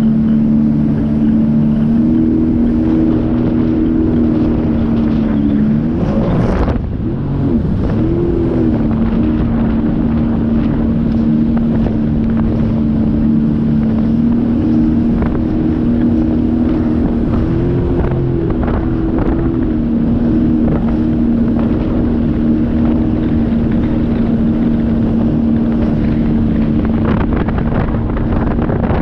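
Sea-Doo personal watercraft engine running at a steady cruising speed, with wind buffeting the microphone. About six seconds in the engine note drops briefly and then climbs back, and it rises slightly again a little later before settling.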